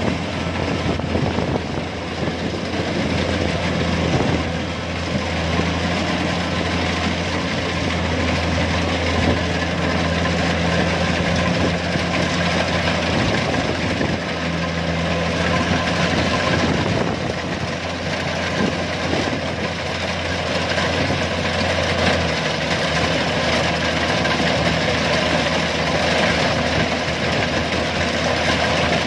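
Compact rice combine harvester running steadily as it drives through the paddy cutting rice: a constant engine hum under a dense mechanical din. The engine note shifts slightly about two-thirds of the way through.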